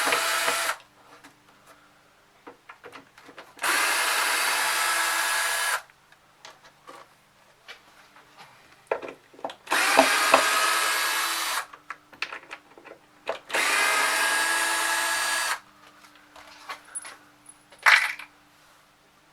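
Power drill-driver backing out screws from a guitar amp cabinet: four separate runs of the motor, each about two seconds long, with a sharp click near the end.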